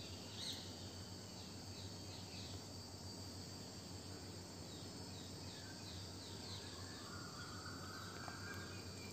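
Faint outdoor insect ambience: a steady high-pitched drone of crickets, with a run of short falling chirps over it and a brief thin tone near the end.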